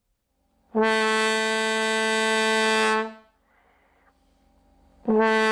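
Trombone blowing one long, loud, steady note right at a wine glass, trying to set it ringing hard enough to shatter. After a pause of about two seconds, the same note starts again near the end.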